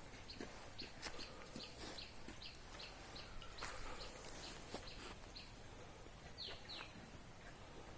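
Birds chirping: a steady run of short, high chirps that fall in pitch, two to three a second, with two longer falling calls near the end. Scattered sharp clicks sound among them.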